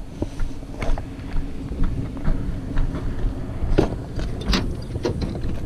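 A van engine idling steadily, with a few knocks and scrapes of cardboard boxes being carried and handled, the clearest about a second in and about four seconds in.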